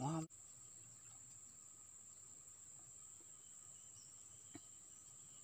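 Faint, steady high-pitched drone of insects, unbroken and without rhythm.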